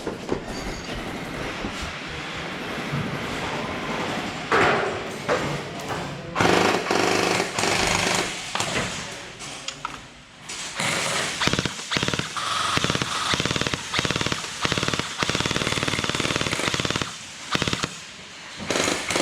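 Electric gel blasters firing full-auto, a rapid rattling run of shots in repeated bursts with short pauses between them.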